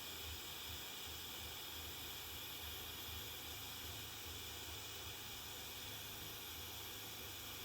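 Blazer butane torch burning with a steady, faint hiss of gas and flame.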